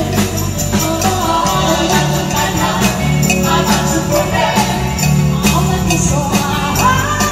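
Live band playing with a woman singing lead and backing vocals over drums and electric guitar, at a steady dance beat.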